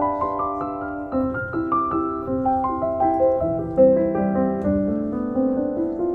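Background music: a gentle piano melody of sustained notes.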